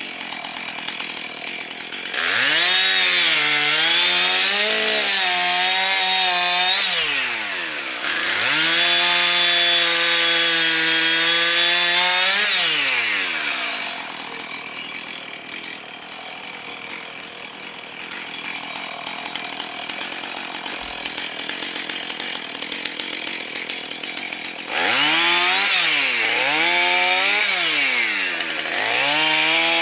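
Husqvarna chainsaw with a 16-inch bar cutting through dead wood: the engine revs up into two long cuts with its pitch wavering under load, drops back to a quieter idle for about ten seconds, then revs into another cut near the end.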